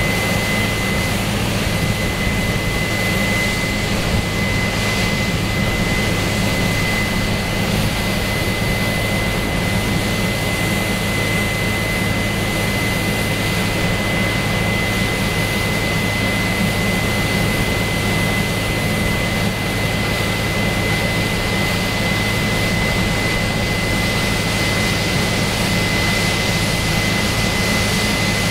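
Case AFX8010 combine harvester running steadily while harvesting peas: a constant low engine drone with a steady high-pitched whine over it.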